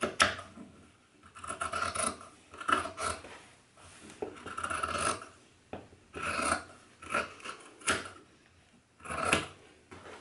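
Large fabric scissors snipping through stitched fabric, trimming the seam allowance around a curved seam so the piece will turn out cleanly. About eight separate scratchy cuts follow one another with short pauses between them.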